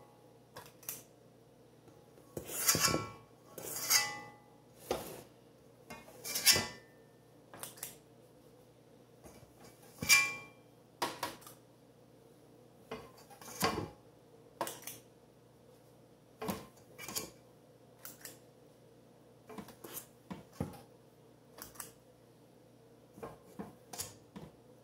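A metal cookie scoop scraping and clinking against a stainless steel mixing bowl as it scoops out peanut butter cookie dough. The clinks and scrapes come irregularly, about one every second or two, and a few of the louder ones ring briefly.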